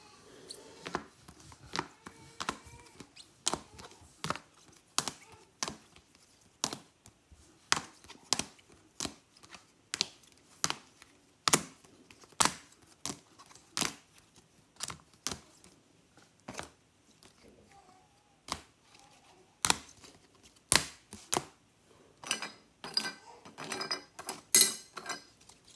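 Trading cards in rigid plastic top loaders set down one after another on a hard tabletop: a steady run of sharp clicks, about one a second, with a spell of plastic sleeves crinkling near the end.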